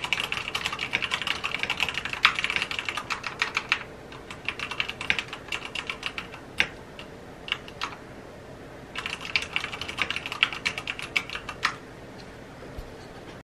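Typing on a mechanical keyboard with tall keycaps, in bursts of clicking keystrokes: a quick run at first, a few scattered single keys in the middle, another quick run about two thirds through, then the typing stops shortly before the end.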